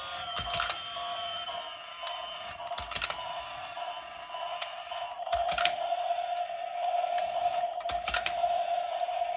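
Small electric motor and plastic gearbox of a toy domino train running on low voltage, a steady whine. A pair of plastic clicks comes about every two and a half seconds as the train sets down each domino.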